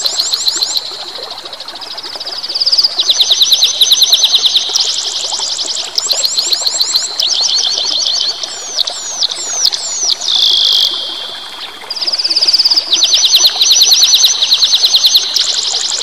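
A songbird singing loud, rapid trills of repeated chirps in short phrases of a second or two, with a few swooping whistled notes about halfway through, over a steady rush of running water.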